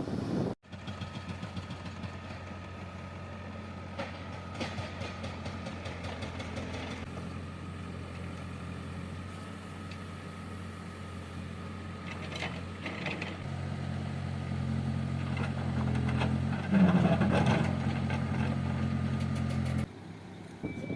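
Diesel engine of a heavy construction machine running steadily, picking up revs about two-thirds of the way through, with a few metallic clanks from the working machine.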